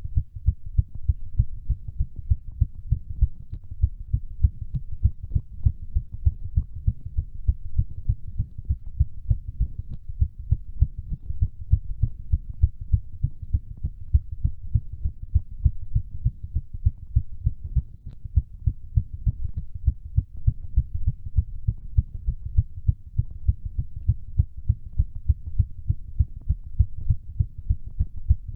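Human heartbeat racing from exercise: fast, regular, dull low thumps that follow each other in quick succession.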